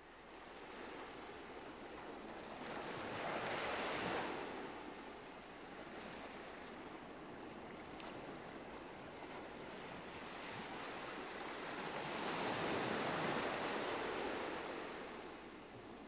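Ocean surf: a steady rushing wash of waves that swells twice, about four seconds in and again around twelve to fourteen seconds.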